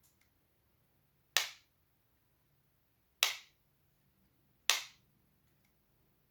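Three sharp snaps, a second and a half to two seconds apart, each dying away quickly.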